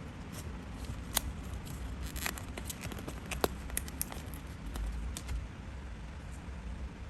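Paper being handled in crafting: scattered light clicks and crinkles, two sharper taps among them, over a steady low background hum.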